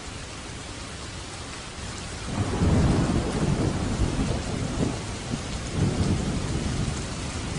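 Steady rain falling, with a low rumble of thunder that swells up about two seconds in and rolls on in several waves, easing slightly near the end.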